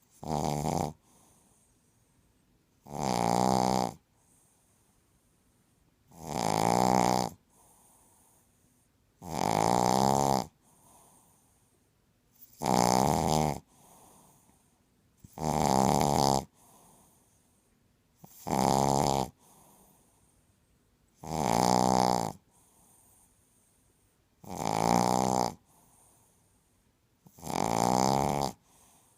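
A sleeping pet snoring loudly. There is one long, pitched snore about every three seconds, ten in all, with faint breathing between them.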